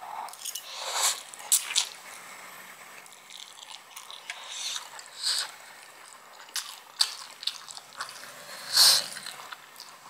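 Close-miked eating of Samyang fire noodles: wet slurping and chewing, with a handful of sharp mouth clicks and smacks spread through, the loudest near the end.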